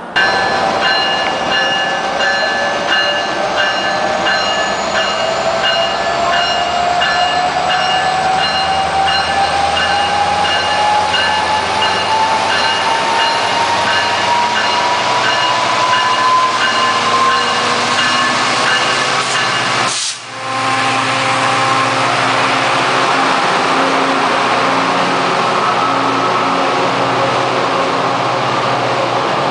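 Metrolink F59PH diesel locomotive and bilevel passenger cars rolling along the platform, with a steady engine drone and a whine that rises slowly in pitch over the first half. The sound briefly drops out about twenty seconds in.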